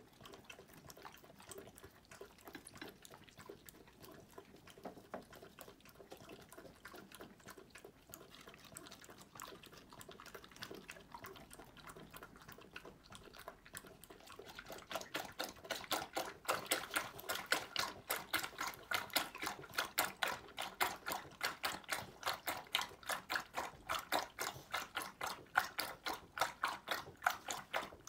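A golden retriever eating quietly at first, then from about halfway lapping milk from a bowl: a steady rhythm of wet laps, about three to four a second, louder than the eating before it.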